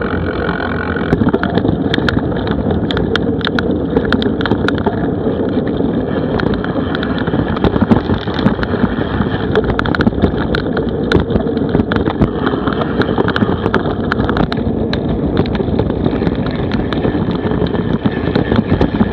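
Wind buffeting an action camera's microphone on a mountain bike, with a steady rumble and frequent sharp clicks and rattles as the bike rides over rough forest dirt trail.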